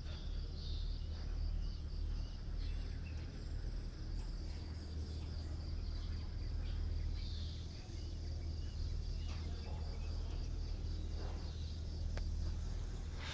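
Insects chirring in a steady, evenly pulsing high trill, over a constant low rumble.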